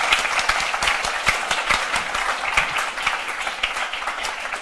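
Audience applauding: a dense patter of many hands clapping that tapers off slightly toward the end.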